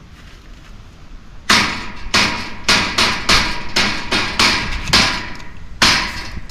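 A machete chopping a wild coot on a metal wire grate: about eleven sharp blows, roughly two a second, starting about a second and a half in, with a faint metallic ring between them.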